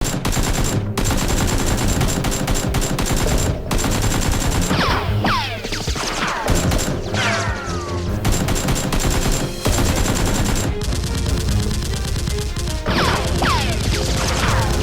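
Rapid automatic gunfire sound effects firing continuously, with clusters of quickly falling whistles about five seconds in and again near the end.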